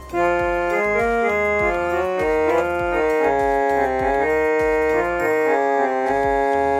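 Casio SA-47 mini keyboard playing on its harmonium tone: held notes and chords moving from one note to the next in a short melody.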